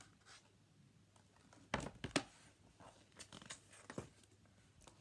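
A picture book being handled and its page turned: two sharp paper rustles about two seconds in, then a few fainter rustles and taps.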